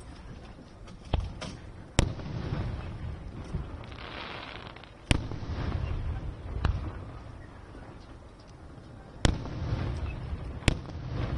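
Aerial fireworks shells bursting: six sharp bangs spaced unevenly over a low rumble, with a stretch of finer crackle about four seconds in.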